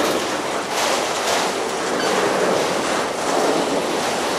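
Freight train cars rolling past, a steady rush of steel wheels on the rails with faint irregular clicks.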